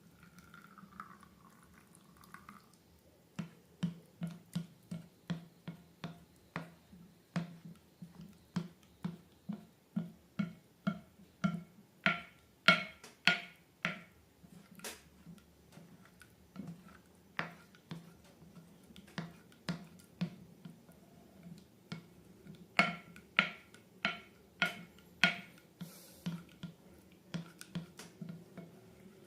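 Slime being squeezed and pressed by hand, making a long series of sharp wet clicks and pops, about two to three a second, with louder clusters in the middle and near the end.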